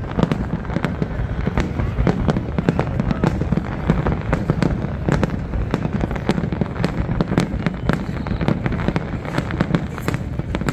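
Aerial fireworks display: a dense, continuous barrage of shell bursts, many sharp bangs each second over a steady low rumble, with no let-up.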